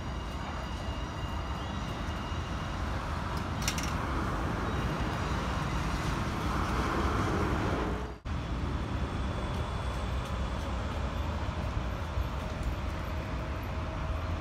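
Steady low rumble of a diesel locomotive approaching slowly in the distance, mixed with road traffic noise.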